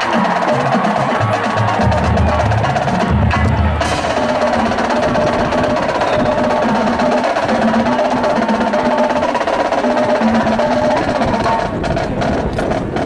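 High school marching band playing: sustained wind chords over drum-line percussion, with heavy low bass-drum hits in the first few seconds.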